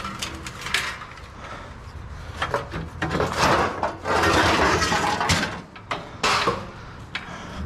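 Hard objects clinking and clattering while rubbish is handled, with a longer stretch of rustling and scraping about halfway through and a low steady hum underneath.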